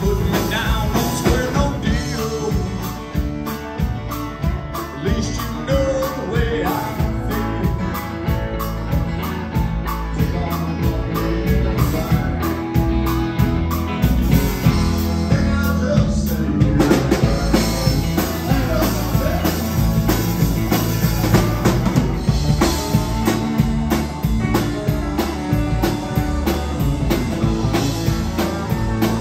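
Live rock band playing: electric and acoustic guitars over a drum kit with a steady beat.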